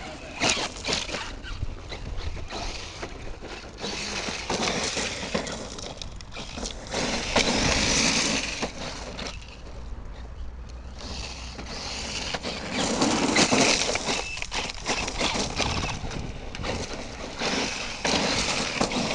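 Electric 6S brushless RC monster truck (a converted 1/8 nitro buggy) accelerating in repeated bursts, its tyres churning loose ground with crackling grit. Four louder surges come a few seconds apart, each lasting a second or two.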